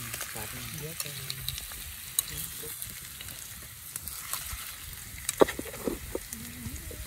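Pieces of red tilapia sizzling as they fry in hot oil in a pan, lightly fried to firm the fish so it does not fall apart in the soup. A steady sizzle with a few sharp pops, the loudest about five seconds in.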